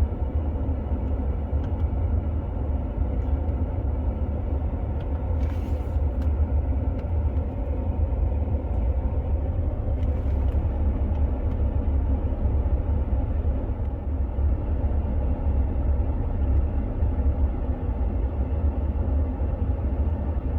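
BMW 520d F10's four-cylinder diesel engine idling steadily on fresh oil while the electronic oil-level check runs, heard from inside the cabin as a low rumble. Two faint short rustles about five and ten seconds in.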